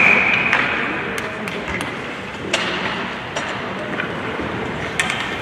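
Ice hockey arena noise during a stoppage in play: the end of a referee's whistle blast fades out within the first second, then steady rink noise with scattered sharp clacks of sticks and pucks on the ice and boards.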